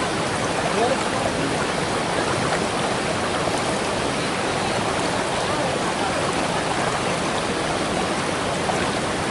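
Waterfall and its stream: a steady rush of falling and running water.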